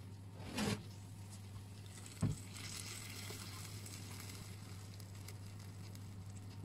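A tray of baked zucchini rounds topped with tomato and cheese sizzling, hot oil crackling on the baking sheet in a steady fine hiss. A couple of short handling rustles come first, then a sharp knock about two seconds in, just before the sizzling starts.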